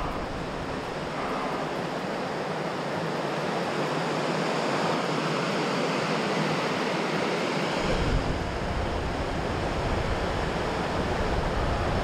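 Mountain stream rushing over rocks, a steady even roar of whitewater. From about eight seconds in, wind rumbles on the microphone as well.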